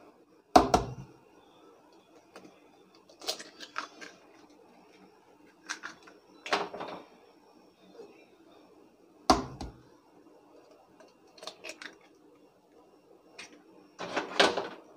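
Eggs being cracked into a glass bowl: a few sharp knocks of shell, the loudest about half a second in and again about nine seconds in, with scattered small clicks and crackles of shell between them.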